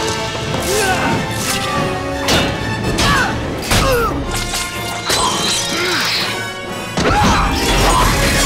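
Orchestral action score under a fight sound mix of repeated crashes and hard hits, about one a second, with stone masonry breaking.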